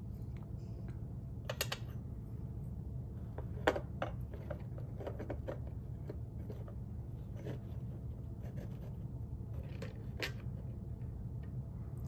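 Small metal craft pieces (an old key, a metal frame, a coil spring) being set down and shifted on a wood panel board: scattered light clicks and taps, the sharpest about four seconds in, over a steady low hum.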